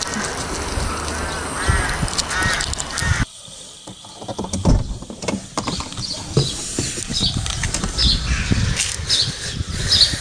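A crow cawing, three harsh arched calls in the first three seconds. Then the sound drops suddenly, leaving scattered knocks and repeated short high chirps.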